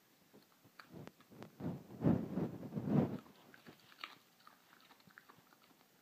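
A dog chewing baby carrots: a run of loud, irregular crunches from about one to three seconds in, then fainter, scattered chewing clicks.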